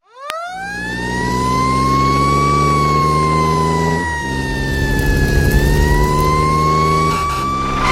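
A siren wailing: its pitch sweeps up as it starts, then slowly wavers, dipping and rising again. Under it runs a steady low engine-like hum.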